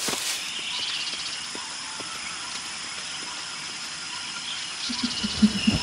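Quiet forest background with a steady high hum; near the end a silverback western lowland gorilla starts a quick series of low hoots, calling for a female to come back.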